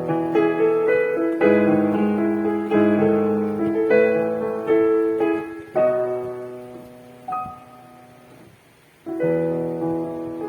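Kurzweil KP110 portable keyboard played with a piano sound: a series of held chords. The last chord dies away and a new one is struck about nine seconds in. The keyboard is heard through a phone's built-in microphone.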